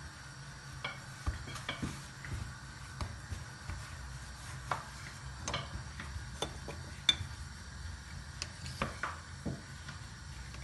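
Hands rolling and handling pastry dough on a granite countertop: scattered light clicks and taps, one sharper than the rest about two-thirds of the way through, over a faint low hum.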